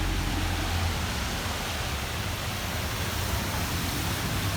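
Steady outdoor street ambience: an even rushing noise with a low rumble underneath.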